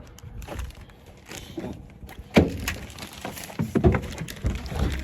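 A scatter of sharp knocks and clatters, the loudest about two and a half seconds in and a quick cluster near four seconds.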